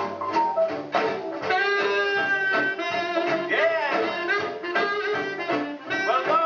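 Swing jazz music with saxophones and brass over a steady beat. The horns hold long notes and bend them.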